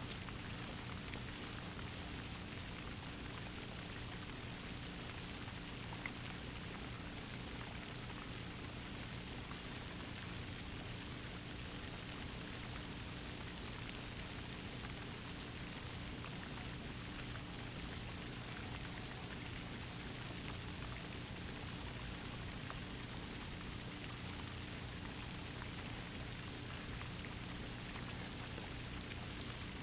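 Steady, even background hiss with a faint low hum underneath and no distinct events.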